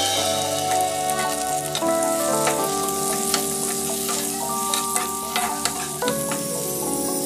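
Sliced onions and chopped tomatoes sizzling in hot oil in a non-stick frying pan while a spatula stirs and scrapes them, giving scattered clicks against the pan. Steady held tones run underneath.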